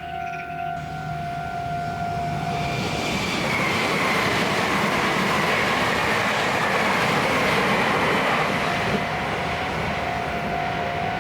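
A Meitetsu limited express electric train passes over a level crossing at speed: a loud rush of wheels on rails builds, with a whine that slowly falls in pitch. The crossing's electronic warning bell rings a steady two-tone kan-kan alarm, heard clearly for the first few seconds and again near the end as the train noise eases.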